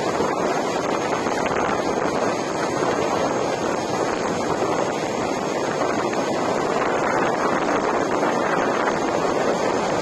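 Steady rush of wind on the microphone mixed with tyre noise from a Gotway Tesla electric unicycle rolling along asphalt at speed, with no sudden events.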